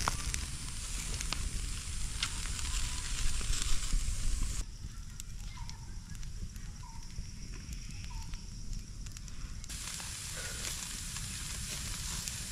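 Food sizzling over an open fire, with the fire crackling in scattered sharp snaps. About halfway through the sound drops quieter for a few seconds, and three faint short chirps come in that quieter stretch.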